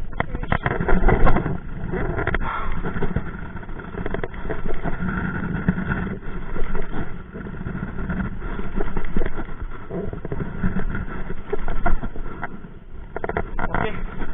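Wind buffeting the microphone of a camera in a small boat on open water: an irregular rushing rumble that swells and fades. There are a few clicks and knocks from the fishing reel being handled in the first second or two.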